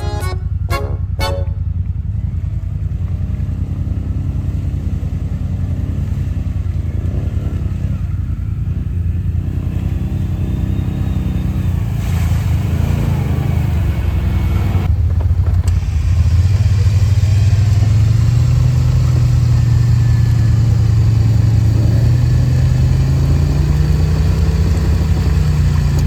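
ATV engine running steadily, its pitch climbing slowly over the second half as it pulls harder.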